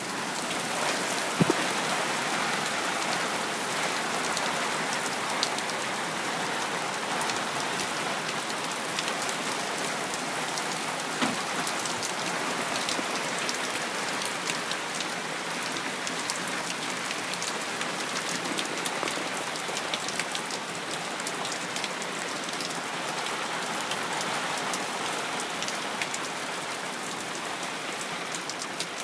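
Heavy rain pouring down steadily: a dense, even hiss with many scattered sharp drop hits.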